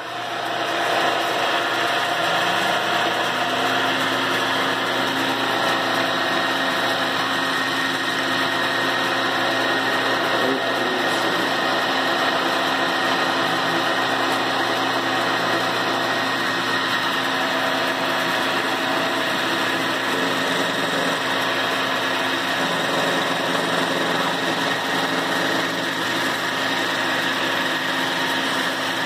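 Milling machine starting up and running steadily with its cutter machining the dust-collector housing, a tone rising over the first few seconds as it comes up to speed, then a constant hum under a steady cutting noise.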